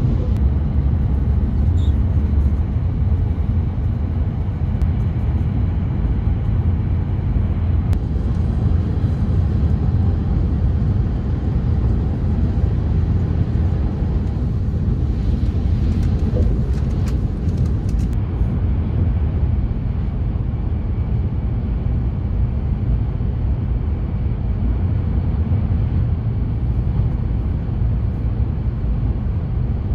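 Hayabusa Shinkansen train running at high speed, heard from inside the passenger cabin as a steady low rumble.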